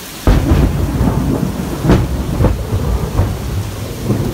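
A loud thunderclap breaks suddenly about a third of a second in and rolls on as deep rumbling with several sharper cracks, over steady heavy rain.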